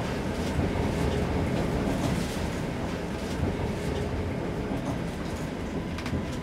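Steady rumble of a moving passenger train heard from inside the carriage, with faint scattered clicks, slowly getting quieter.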